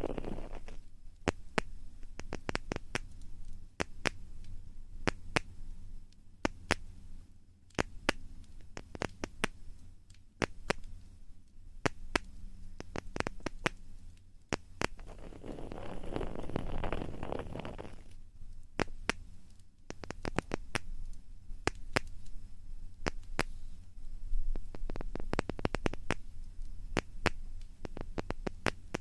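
ASMR ear-cleaning and ear-rubbing sounds: many sharp crackling clicks and scratches, with a stretch of soft rubbing about halfway through.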